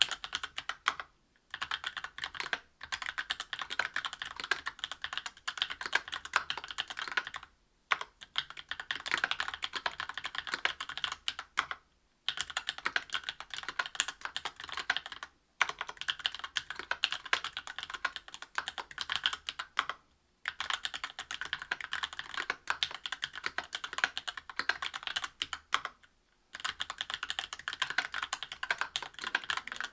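Fast, continuous typing on a mechanical keyboard with lubed Tecsee Oreo 63.5 g linear switches (Krytox 205g0), an aluminum plate and GMK doubleshot keycaps: a dense stream of key clacks, broken by brief pauses about half a dozen times.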